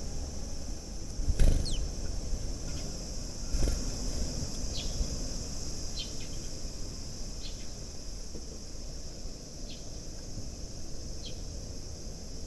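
Sparrows giving short, high chirps every second or two over a steady high-pitched insect drone and a low outdoor rumble; a couple of louder low thumps come early on.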